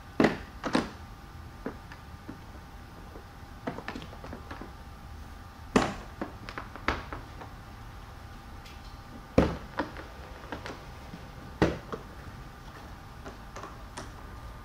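The plastic latches of a black hard-shell carrying case snapping open one after another: a string of sharp clicks and snaps, each a second or more apart, ending with the lid being lifted.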